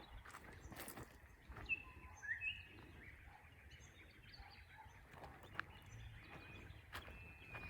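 Faint wild birds calling: a few short chirps and quick rising whistles, clustered about two seconds in, over a quiet background with scattered sharp clicks.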